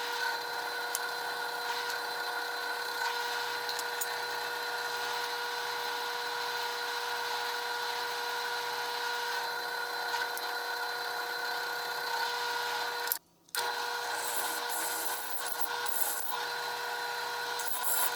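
Electric drill running at a steady speed, drilling holes in the table saw inserts. It stops briefly about thirteen seconds in, then runs again.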